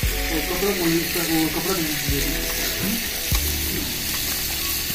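Raw chicken pieces sizzling steadily in a karahi (wok) over a wood fire, just after being added to the pan. Voices talk over it in the first couple of seconds.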